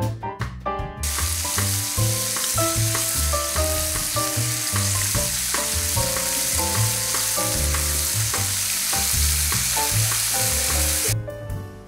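Salmon fillets sizzling on hot grill grates, a steady frying hiss that starts about a second in and cuts off near the end, over background music.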